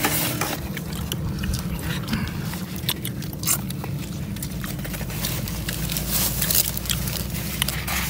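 Close-up eating sounds: chewing and biting, with scattered crisp clicks, over a steady low background rumble.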